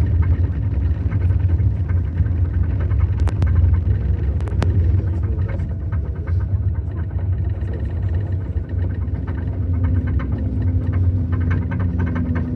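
Steady low rumble of a running vehicle, with a steady hum that grows stronger about nine seconds in.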